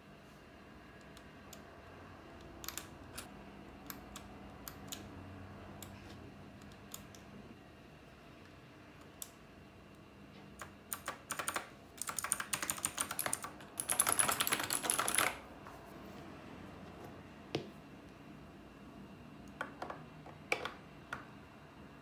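Knewkey Rymek typewriter-style mechanical keyboard with clicky Cherry MX Blue switches being typed on: single key clicks spaced out at first, then about four seconds of fast, dense typing just past the middle, then a few more scattered clicks.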